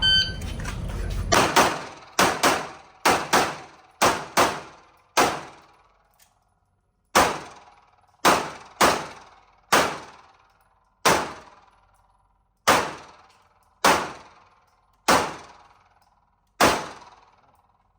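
Electronic shot-timer start beep, then a string of handgun shots, about nineteen in all. About ten come quickly in pairs over the first few seconds, then the rest are spaced roughly a second apart, each ringing out briefly.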